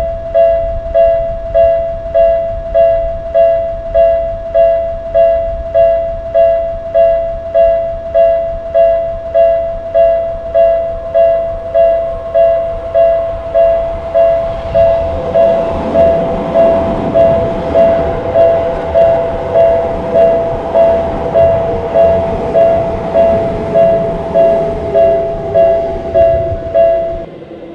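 Japanese railroad-crossing warning bell dinging steadily, about one and a half strikes a second. About halfway through an electric train passes, its rumble and wheel noise building under the bell, with a whine that slowly falls in pitch; the sound cuts off abruptly just before the end.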